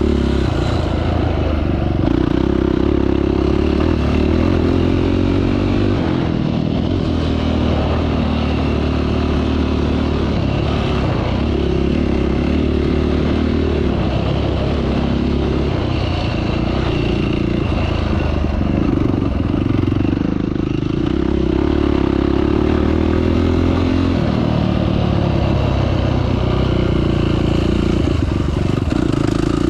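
Off-road vehicle engine running continuously on a trail ride, its pitch rising and falling every few seconds as the throttle and gears change.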